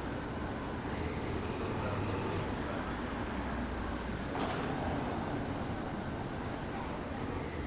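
Steady vehicle rumble and background noise, with a short hiss about four and a half seconds in.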